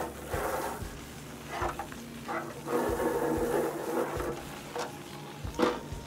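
Water from a garden hose splashing over clear plastic refrigerator drawers as they are rinsed, with occasional knocks of the plastic being handled.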